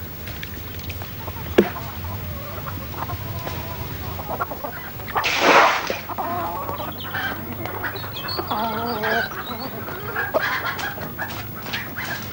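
Chickens clucking and calling, with a sharp knock about a second and a half in and a brief loud noisy burst about five seconds in.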